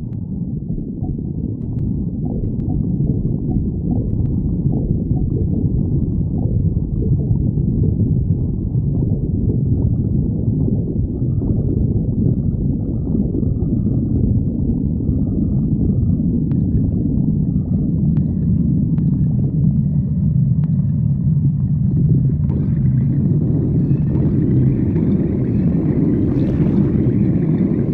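A person's stomach growling: continuous low rumbling and gurgling, with higher squeaky tones joining in over the last few seconds.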